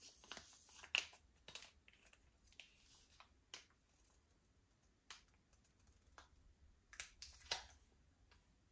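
Hands working slime, giving scattered sharp clicks and pops, the loudest about a second in and near the seven-and-a-half-second mark.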